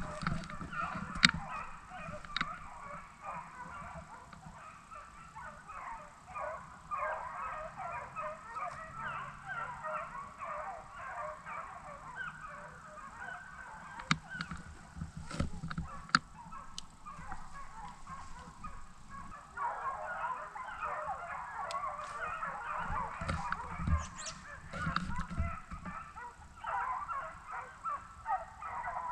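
A pack of deer hounds baying together in a continuous chorus of overlapping calls while running a deer. The chorus thins twice and swells again about twenty seconds in, with a few sharp clicks, the loudest about a second in.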